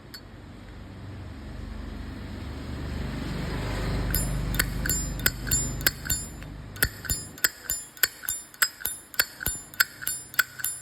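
Nickel-plated slim Zippo lighter being worked in the hand: a low rising rustle of handling, then from about four seconds in a fast string of sharp metallic clicks, each with a short bright ring, about two to three a second, as the lid is snapped and the flint wheel struck.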